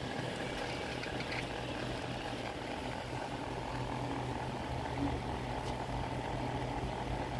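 A steady low mechanical hum with a constant low drone and no change in level.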